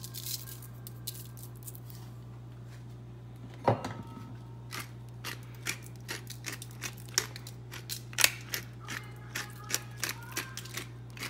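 Hand-twisted salt and pepper grinder, its mill clicking in a fast, irregular run of short clicks as pepper is ground over raw chicken, starting after a single knock about four seconds in. A steady low hum sits underneath.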